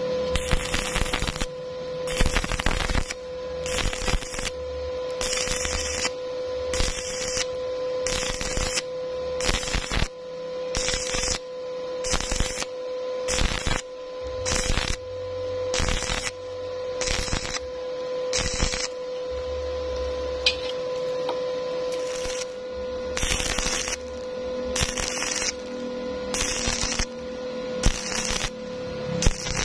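Stick welding arc crackling in short bursts, roughly one a second with brief gaps between, over a steady hum.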